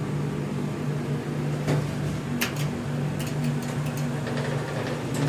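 Steady low hum of an elevator cab's ventilation fan, with a few faint clicks in the middle.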